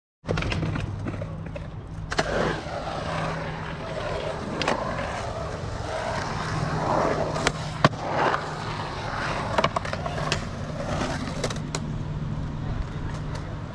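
Skateboard wheels rolling through a concrete bowl, the rumble rising and falling in pitch as the board carves up and down the walls, with several sharp clacks along the way.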